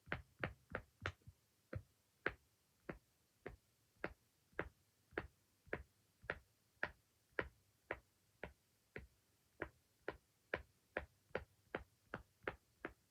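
Silicone pop-it fidget toy, its bubbles pressed one after another, making a string of short clicking pops. They come quickly at first, settle to about two a second, then speed up again near the end.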